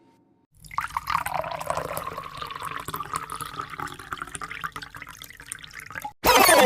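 Water being poured into a container, a steady splashing trickle lasting about five seconds. Near the end a much louder, different sound effect with falling pitches cuts in abruptly.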